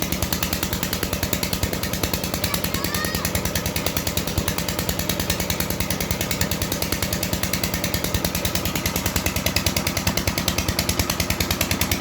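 A motor or engine running steadily with a rapid, even thumping of about eight beats a second.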